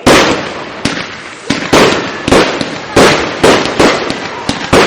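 Aerial firework shells bursting in quick succession, about two loud bangs a second, each trailing off in an echoing rumble before the next.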